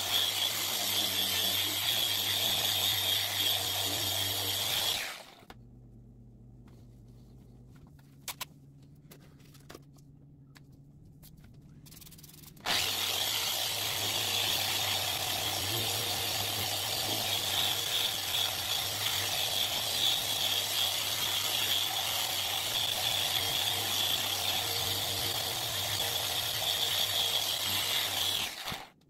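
Electric random orbital sander running on a plexiglass (acrylic) sheet. It stops about five seconds in, leaving a quiet gap with a few light clicks. It starts again about thirteen seconds in and runs steadily until it cuts off just before the end.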